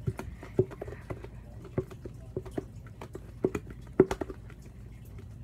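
Slime mixture of glue, dish soap and laundry detergent being stirred in a bucket: irregular wet clicks and taps, the loudest about four seconds in.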